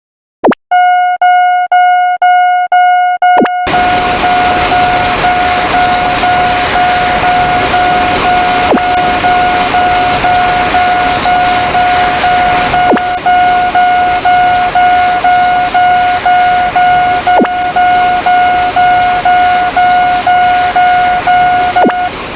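Railroad crossing warning bell ringing in a steady electronic ding about twice a second. After about three and a half seconds a passing train joins it with a loud rushing noise and a clack every four seconds or so, and both stop together near the end.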